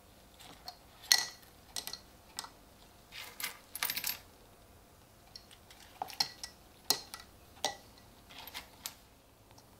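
Old corroded coins clinking against each other and the wooden board as they are picked up and dropped into a glass jar of liquid. The clinks come in scattered groups, each with a short metallic ring.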